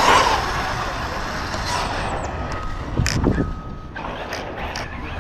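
Arrma Kraton 6S V6 RC truck's brushless motor whining at full throttle at the start, then easing off under tyre and wind noise. A sharp knock about three seconds in and a few lighter knocks just after four seconds, as the truck hits and tumbles.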